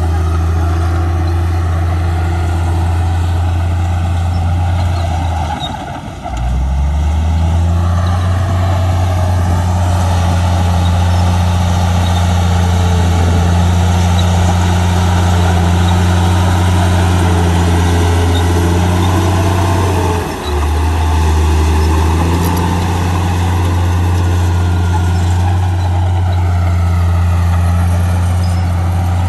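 Komatsu crawler bulldozer's diesel engine running steadily under load as it pushes soil, a deep, even drone that dips briefly twice, about six seconds in and about twenty seconds in.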